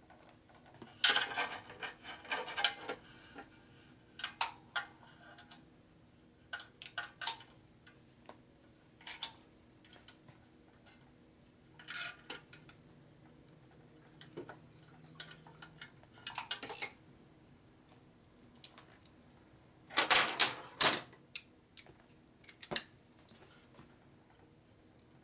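Metal exhaust pipe and bracket hardware and hand tools clinking and clattering in irregular short bursts as the pipe is moved and test-fitted, with louder clattering about a second in and again around twenty seconds in. A faint steady hum runs underneath.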